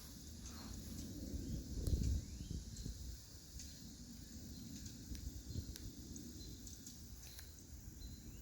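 Outdoor garden ambience: a few short rising bird chirps over a steady low rumble, with a louder low thump about two seconds in.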